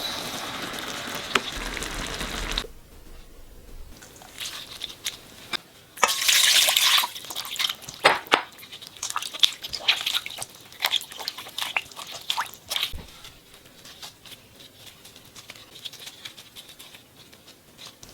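Pickled perilla leaves being rinsed in water and squeezed out: dripping and splashing, with a louder rush of running or pouring water about six seconds in.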